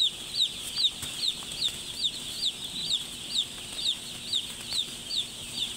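A house full of young broiler chicks peeping: a constant chatter of high chirps, with loud single falling peeps standing out a few times a second.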